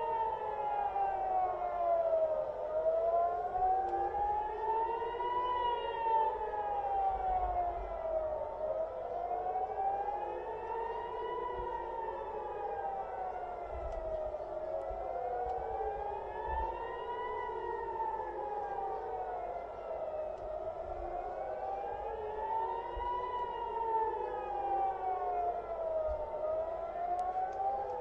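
Civil defense warning sirens wailing, their pitch rising and falling about every six seconds. Two or more sirens sound out of step, so their wails overlap and cross. This is the missile-attack alert warning of incoming ballistic missiles.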